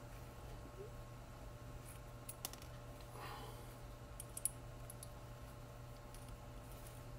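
Small plastic and metal parts of a scale RC transmission clicking as they are handled during teardown: a couple of light clicks about two and a half seconds in, a brief scrape, then a sharper click about four and a half seconds in, over a steady low hum.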